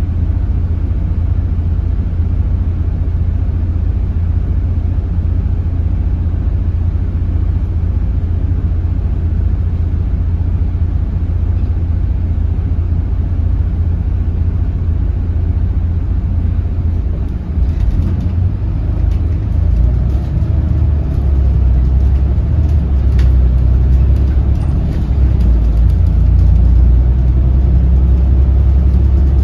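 Volvo D8K 7.7-litre six-cylinder turbo diesel of a Volvo B8RLE bus, heard from inside the passenger cabin: a steady low idle while the bus stands, then the engine pulls away and accelerates a little past halfway, growing louder.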